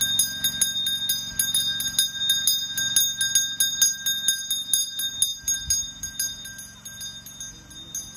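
Temple hand bell rung rapidly and without a break, its ringing tones held between the quick strokes, growing a little fainter in the last couple of seconds.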